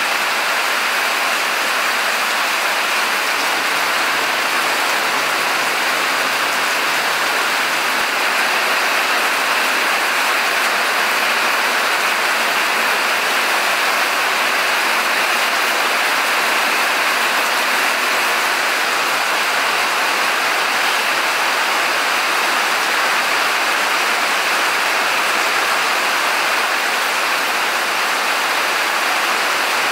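Steady rain falling, a continuous even hiss that does not change.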